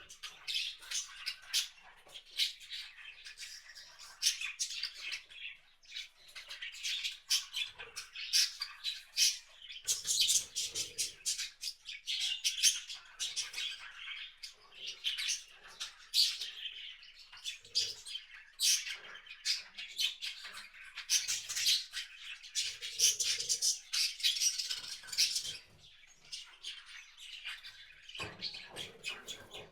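Wild birds chirping and calling continuously, many short high calls overlapping, with a few soft low thumps around ten seconds in and near the end.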